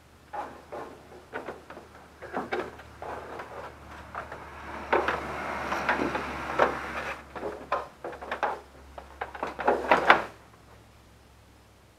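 Ford Freestar's plastic cowl panel being pressed back into place by hand: a run of plastic clicks and knocks with scraping and rustling in the middle, the sharpest knocks about ten seconds in, then it stops.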